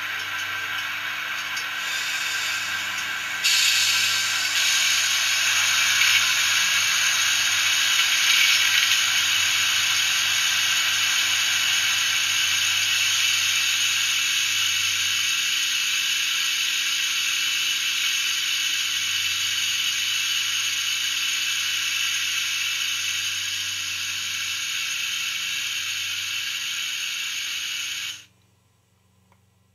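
Zimo 645R sound decoder in a Heljan OO-gauge Class 28 Co-Bo model playing a steady whirring hiss of the recorded diesel locomotive standing still, through the model's small speaker. It steps up louder about three and a half seconds in and cuts off suddenly shortly before the end.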